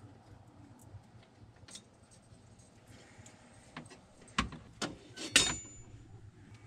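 Small clicks and rustling of hands working wire connectors onto the terminals of a refrigerator defrost heater and handling its metal bracket, with three sharp clicks within about a second past the middle, the last the loudest.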